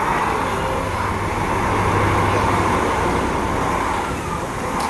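DB Class 216 diesel-hydraulic locomotive running steadily as it passes, its engine giving a continuous low hum under a steady mechanical drone, a little louder around the middle.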